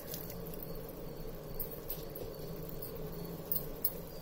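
Spiced biryani gravy of tomatoes, mint and green chillies bubbling in a pan on the heat: a steady low simmering noise with a few faint clicks and pops, two of them about three and a half seconds in.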